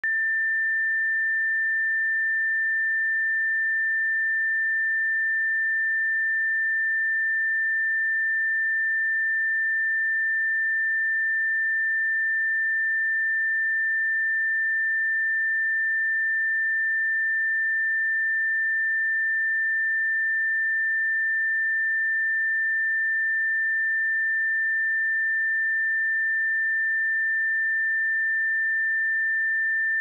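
A pure 1786 Hz sine-wave test tone, one steady high pitch held without change.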